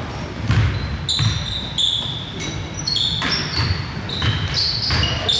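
Basketball being dribbled on a gym floor, a dull bounce about every half second, with sneakers squeaking sharply on the court in short chirps.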